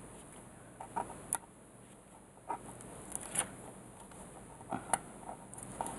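Soft paper rustling and a few light, irregular ticks as a craft scalpel's tip picks at and lifts the backing strip off double-sided tape on a thin paper envelope.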